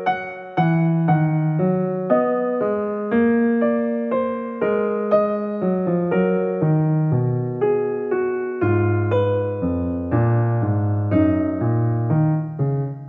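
Background solo piano music: a gentle melody over chords, each note struck and fading, at an easy steady pace.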